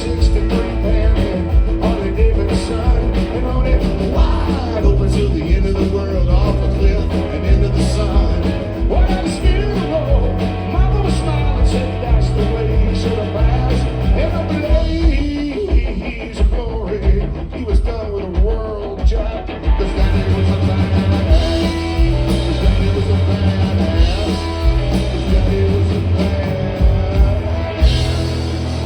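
Live band playing a rock-and-roll song with electric guitar, bass and drums at a steady beat. Partway through, the drums drop out for a few seconds, then come back in with the band.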